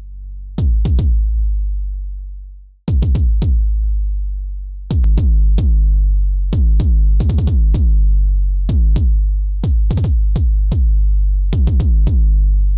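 Synthesized 808-style kick drum made with FabFilter Volcano 3, playing a pattern of hits in quick clusters. Each hit is a sharp click with a fast falling pitch sweep over a long, sustained low boom from the self-oscillating filter. The boom fades away and stops briefly about three seconds in, then the pattern starts again while the filter drive and style are being changed.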